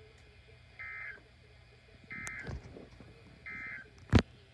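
Emergency Alert System end-of-message data tones on a NOAA Weather Radio broadcast: three short, identical bursts of warbling digital tone, each about a third of a second long and spaced a little over a second apart, marking the end of the severe thunderstorm warning. Near the end there is a single loud, sharp click.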